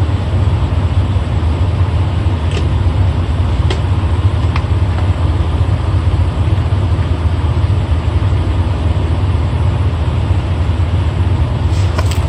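A large engine idling steadily with a low hum, with a few faint clicks in the first half.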